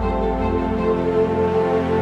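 Background music: a slow, calm track with sustained chords over a held bass note.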